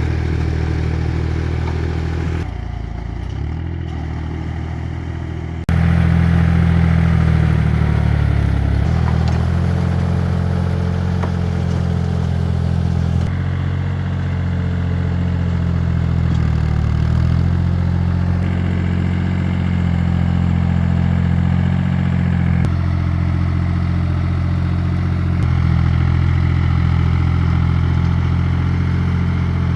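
Tractor engine running steadily at a low, even note, its sound jumping abruptly a few times, about two and a half seconds in, near six seconds and about thirteen seconds in.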